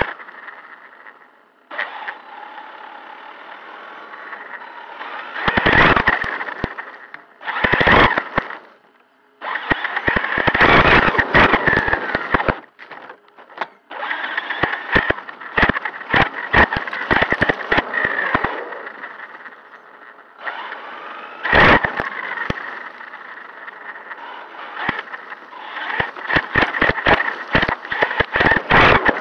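Traxxas Sledge RC monster truck driving, heard from on board: the brushless electric motor and drivetrain whine, rising and falling with the throttle, broken by frequent knocks and clatters as the chassis bounces over grass, leaves and pavement, with a couple of brief lulls when it slows.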